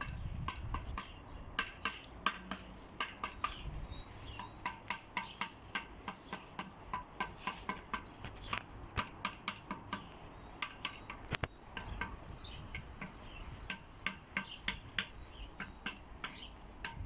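A long run of short, sharp clicks or taps, two to three a second and uneven in strength, over a faint low rumble.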